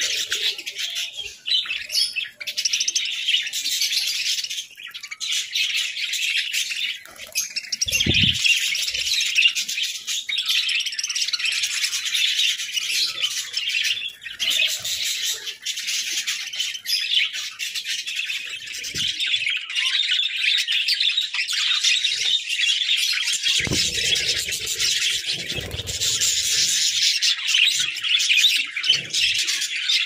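A flock of budgerigars chirping and chattering non-stop, many birds calling over one another at once.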